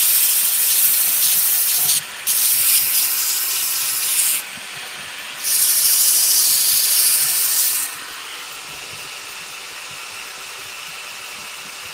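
Abrasive paper held against a wooden vase spinning on a lathe: a loud hiss in three spells of about two seconds, each starting and stopping abruptly as the paper is pressed on and lifted off. Between the spells, and through the last four seconds, only a lower steady background rush is heard.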